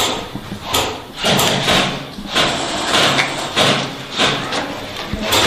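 Footsteps at a steady walking pace, about one crunching step every half second or so, over a faint low hum.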